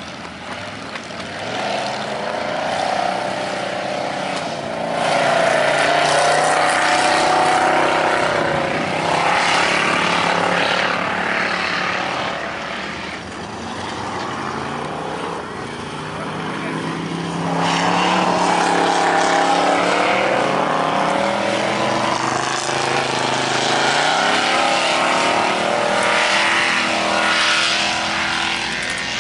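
Off-road race trucks' engines revving on a dirt track, their pitch repeatedly rising and falling, with several louder surges as they pass.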